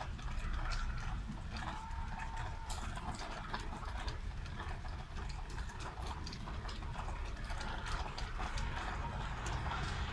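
Rain falling, with many small sharp ticks of drops scattered throughout, over a steady low rumble.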